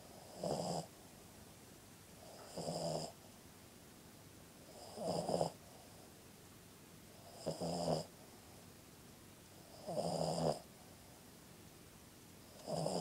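A sleeping puggle snoring: six snores at an even pace, about one every two and a half seconds, each lasting about half a second.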